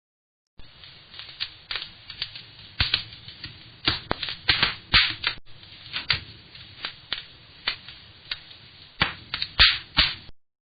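Fire crackling: irregular sharp snaps and pops over a faint steady hiss, starting about half a second in and cutting off near the end.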